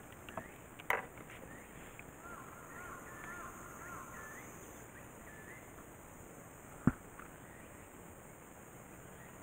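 Quiet open-air ambience in which a bird gives a run of quick, repeated chirping notes for a few seconds, with one sharp knock about seven seconds in.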